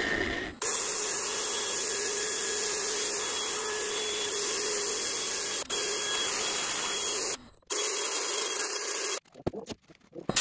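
Cordless drill spinning a sanding pad against a wooden bowl turning on the lathe: a steady hissing whir with a faint hum. It breaks off briefly about two-thirds through, runs again and stops near the end, followed by a few light knocks.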